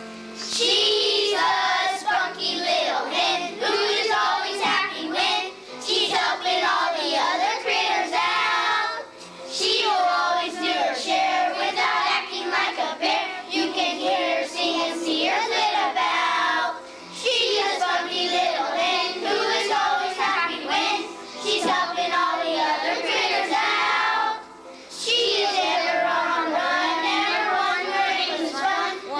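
Group of children singing a song together, in phrases of several seconds broken by three short pauses.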